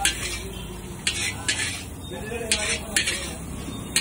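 A metal spatula scraping and clanking against a large steel wok as egg noodles are stir-fried, about six strokes at an uneven half-second-to-one-second rhythm, over a low sizzle.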